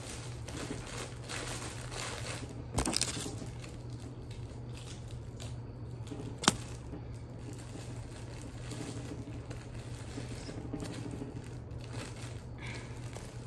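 Plastic candy wrappers and bags rustling and crinkling as candy is packed into treat bags, with a short louder rustle about three seconds in. A single sharp click about six and a half seconds in is the loudest sound.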